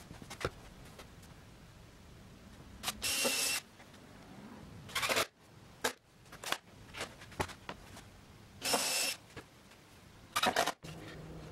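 Cordless drill driving screws into plywood in four short bursts: two of about half a second, around three seconds in and near nine seconds, and two shorter ones between, with a few light clicks and knocks of wood handling.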